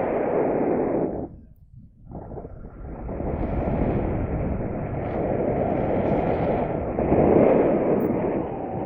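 Strong wind buffeting the microphone in gusts. It drops out briefly after about a second, then comes back and swells to its loudest near the end.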